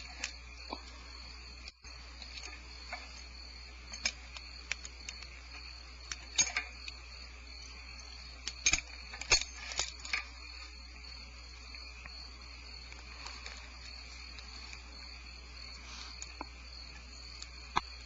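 A steady low electrical hum under a steady high chirring, typical of night insects, with scattered light clicks and scratches, clustered a few seconds in and again around the middle.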